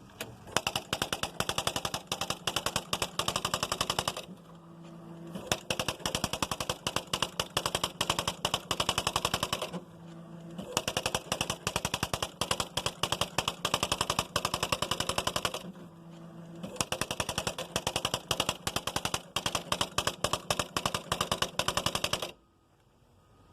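Smith Corona Mark XV electronic typewriter printing its built-in demonstration on its own: rapid, even strikes in four long runs. Each run is split from the next by about a second of low motor hum. The printing stops near the end.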